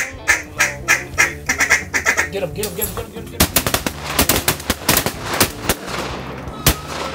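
A run of duck quacks, about three a second, followed by a volley of shotgun fire: about a dozen closely spaced, overlapping shots from several guns over some three seconds, then one more shot near the end.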